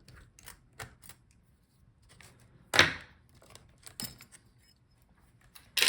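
Small clicks and knocks of laptop parts being handled while the I/O board is taken out: a few light ticks, then a sharp knock about three seconds in, a lighter one about a second later, and another loud knock at the end.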